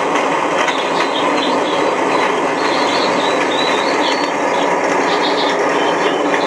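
Recorded ship-engine sound effect played through a model boat's on-board loudspeaker: a steady, dense mechanical drone, with faint short chirps high above it.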